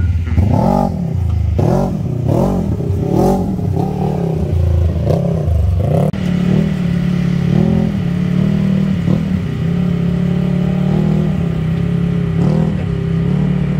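Engine of a big lifted Kawasaki side-by-side, revved up and down over and over, about once a second. About six seconds in it settles to a steady, even pitch as the machine drives along.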